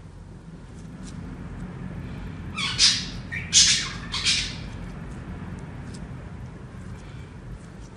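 Clear slime squelching as a hand squeezes it, three loud wet squelches about three to four seconds in, over a low steady rumble.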